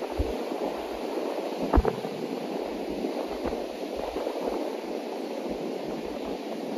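Rough sea surf breaking and washing onto a sandy beach, a steady rush, with wind buffeting the microphone in irregular low thumps; the loudest is a sharper thump about two seconds in.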